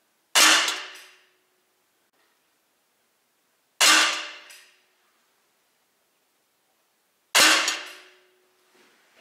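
Three shots from an Umarex SA10 CO2 .177 air pistol, about three and a half seconds apart, each a sharp crack with a short ringing tail.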